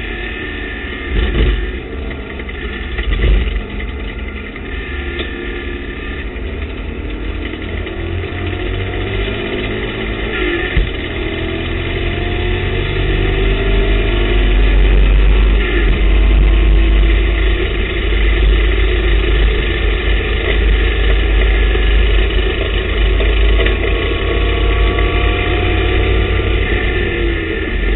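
In-cockpit sound of a TVR Tuscan race car's engine under racing load, its pitch rising repeatedly as it accelerates through the gears, with wind and road noise. It has two brief loud bumps in the first few seconds and grows louder from about halfway through.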